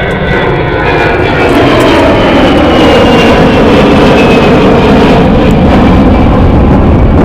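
Jet airliner's engines passing close by. The noise builds over the first couple of seconds and then stays very loud, with a high whine that slowly falls in pitch as the aircraft goes past.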